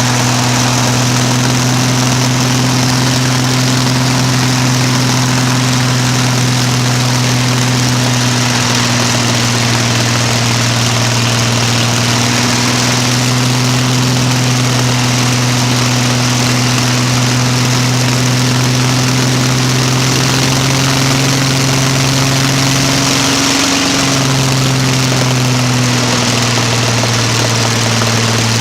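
Old piston aircraft engine running steadily with its propeller turning, loud and even, its pitch rising slightly about twenty seconds in and dipping briefly a few seconds later.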